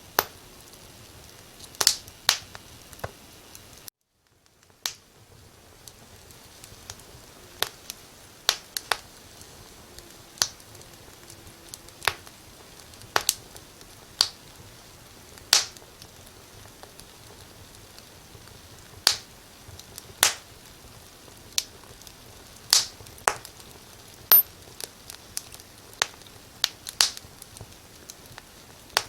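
Firewood burning in a fireplace: irregular sharp pops and snaps, sometimes two or three close together, over a faint steady hiss. The sound cuts out briefly about four seconds in.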